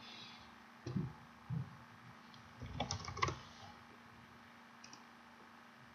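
Soft clicks and taps from a computer keyboard and mouse in a few small groups, over a faint steady hum.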